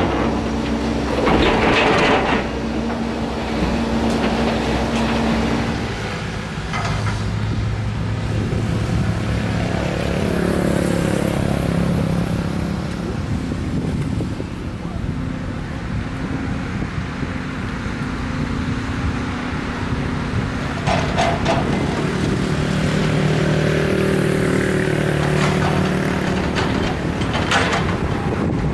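Volvo EC210 excavator's diesel engine running under working load, its pitch shifting as the hydraulics are worked, with a few short bursts of scraping and crunching as the bucket tears up the road surface.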